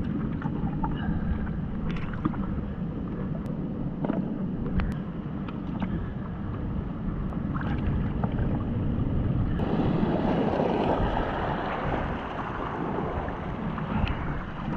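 Shallow surf washing and sloshing over a rocky reef shoreline, with wind rumbling on the microphone and a few small knocks and clicks. About ten seconds in, the wash grows louder and hissier.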